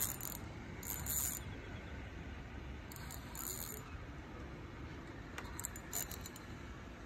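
Fly reel's click-and-pawl drag ticking in several short bursts of rapid clicks as line is reeled in or pulled off.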